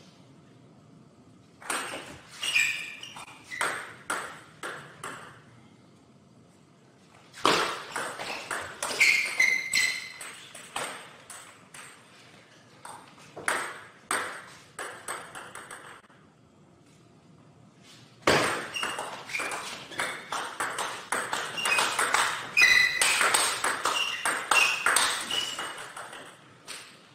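Table tennis rallies: the plastic ball clicking in quick strings off the paddles and the table. There are four rallies, the last and longest about two-thirds of the way in, with short pauses between points.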